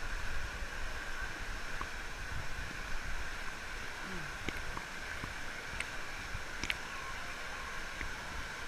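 Steady rushing of pool water and the water spilling over the pool wall, picked up through a GoPro's waterproof housing, with a few faint clicks and a faint distant voice about four seconds in.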